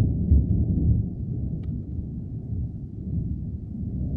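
Distant thunder rumbling low, loudest in the first half-second and then slowly dying away.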